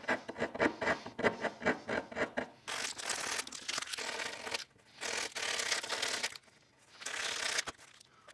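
Hand rasp scraping at the sharp nubs of a burl live edge in quick short strokes, about five a second. Then sandpaper rubs the same edge in three longer strokes with short pauses between them.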